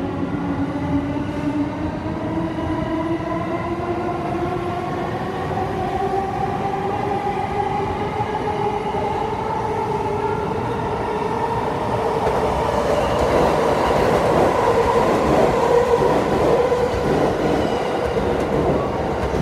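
E231- and E233-series electric multiple-unit train pulling away from the platform and gathering speed. The traction motors' whine rises steadily in pitch. From about two-thirds of the way in, the train gets louder and a rattling of wheels over the rails comes in.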